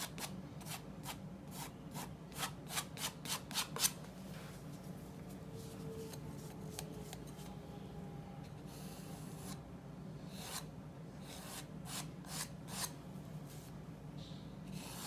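Short, scratchy strokes of a paintbrush working oil paint on paper, coming in quick runs of about three a second, with a quieter stretch in the middle. A low, steady hum runs underneath.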